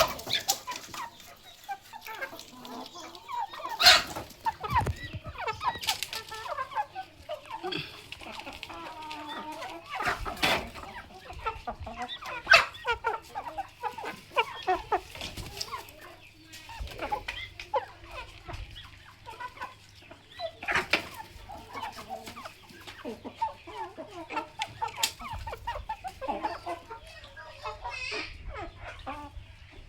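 Village chickens clucking and calling while they feed, many short calls overlapping, with a few sharp knocks standing out above them.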